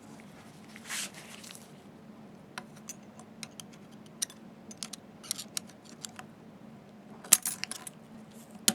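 Small metal clicks, ticks and scrapes of a steel snap ring being worked into its groove on a metal optical tube with hand tools. The ring is a tight fit. The loudest clicks come near the end, over a faint steady hum.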